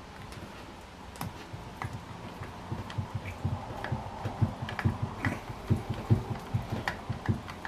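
Irregular small clicks and light knocks as the air rifle and tools are handled, sparse at first and coming more often and a little louder from about three seconds in.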